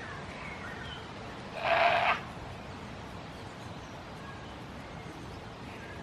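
A goat bleats once, about one and a half seconds in, a single call about half a second long.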